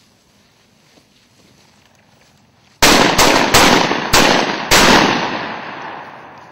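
Shotgun fire: five sharp shots in quick succession within about two seconds, the ringing of the last shot fading away over a second or so.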